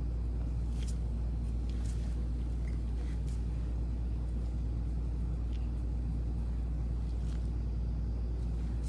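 A steady low hum, with a few faint light ticks scattered through it.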